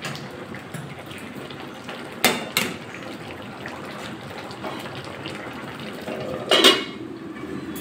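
A spatula stirs boiled taro stems and leaves in an aluminium kadai, knocking against the pan twice about two seconds in. Near the end an aluminium lid is set down on the kadai with a clatter.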